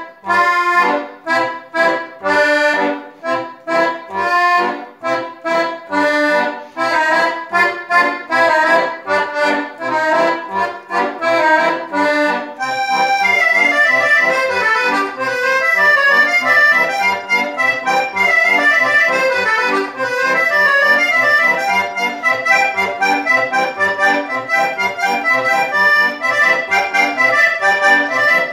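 Piano accordion playing a classical dance piece. The first half is short, detached notes over a regular bass pulse; about halfway through the music changes to fuller, held chords with busy high melody notes.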